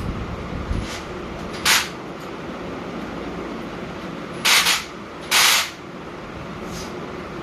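Three short hissing rasps from the handlebar area of a bicycle being assembled: one about two seconds in, then two close together around five seconds in. A steady background hum runs under them.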